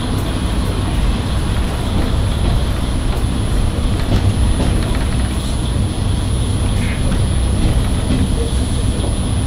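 Steady running noise heard from inside a Japanese National Railways-era KiHa 20 diesel railcar under way: the low drone of its underfloor diesel engine and the rumble of the wheels on the track, holding even throughout.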